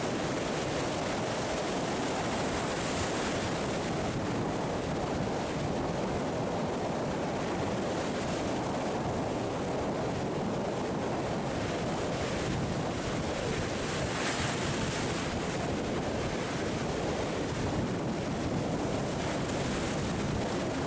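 Sea surf washing and breaking over rocks: a steady rushing wash that swells about three seconds in and again about two-thirds of the way through. Wind buffets the microphone.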